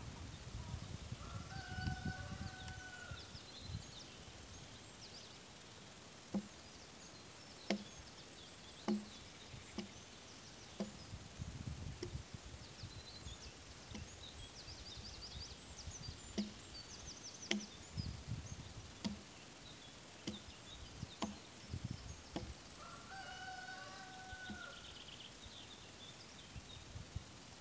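Hand tool striking an oak log to strip its bark: separate knocks, irregular, roughly one a second, beginning about six seconds in. Birds sing throughout, and a longer two-pitched bird call sounds near the start and again near the end.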